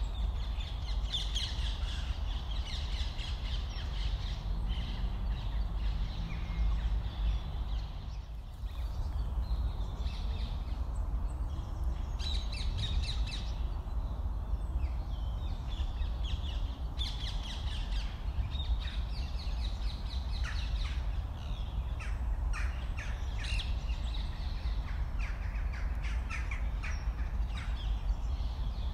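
Birds calling repeatedly, among them crows cawing, over a low steady rumble.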